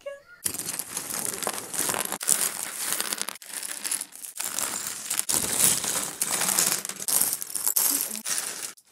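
Plastic LEGO parts bags crinkling and rustling while handled, with LEGO Technic pieces clicking and clattering among them; the dense rustle starts about half a second in, with brief dips a few times.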